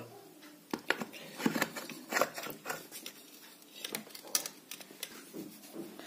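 Scattered light clicks and scrapes at irregular intervals from ceiling fan parts being handled as the cover is fitted back onto the fan motor.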